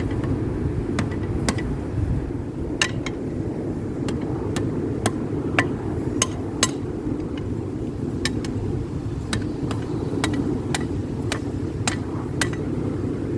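Hand hammer striking hot steel tong jaws on an anvil, about eighteen sharp blows at an uneven pace, some with a short metallic ring, as the jaws are forged to grip tighter. A steady low roar runs underneath.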